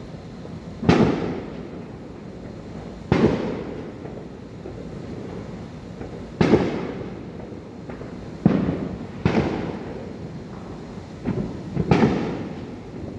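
Fireworks bursting: about eight separate bangs at irregular intervals, each trailing off over about a second.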